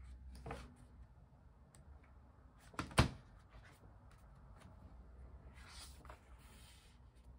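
Quiet handling of a paper sticker book on a desk, with one sharp knock about three seconds in and a rustle of pages near six seconds.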